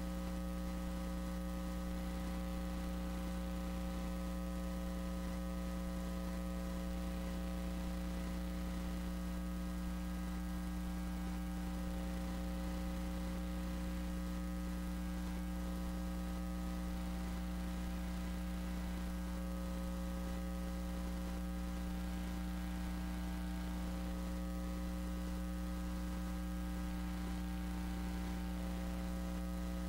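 Steady electrical mains hum: a low drone with a stack of higher steady tones above it, unchanging.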